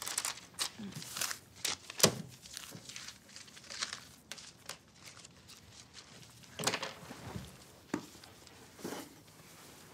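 Paper rustling and tearing as pages are torn from a small spiral notepad and handled, in a series of short rustles, the loudest about two seconds in.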